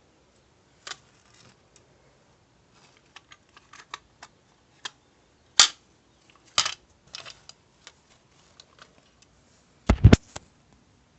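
Handling noise: scattered clicks and knocks of hard objects being moved and set down, with a sharp louder click about halfway and a heavier double thump near the end.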